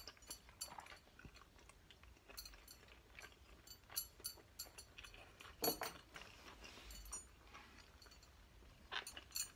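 Faint chewing of a mouthful of food, with scattered small clicks from the mouth and from chopsticks touching the plate.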